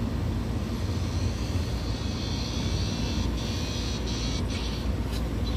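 Car driving along a road, heard from inside the cabin: a steady low rumble of engine and tyres. A high hiss comes in about two seconds in and eases off near the end.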